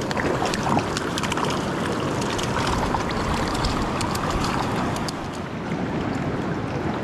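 Mountain creek water rushing steadily, with scattered small clicks and splashes over the first few seconds.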